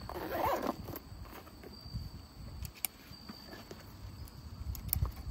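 A zip being drawn shut on a small nylon pouch in the first second, then quiet handling with a few sharp plastic clicks as its side-release buckles are fastened, the loudest near the end.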